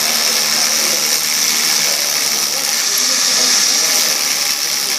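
Milwaukee M12 SDS rotary hammer running under load, drilling with a loud, steady hammering buzz.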